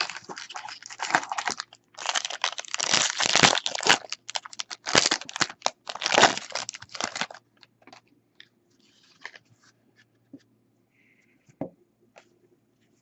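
Foil wrapper of a baseball card pack being torn open and crinkled, in loud crackling bursts for about the first seven seconds, then only a few faint rustles and taps.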